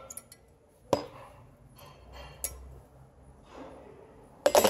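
Metal clinks and knocks from a steel front brake caliper bracket being handled: a sharp click about a second in, another about a second and a half later, and a louder cluster of knocks near the end.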